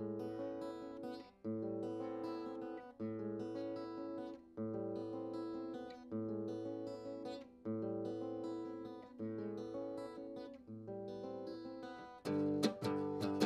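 Acoustic guitar played solo in an instrumental break of a song: a chord is strummed about every second and a half and left to ring, with a louder chord near the end.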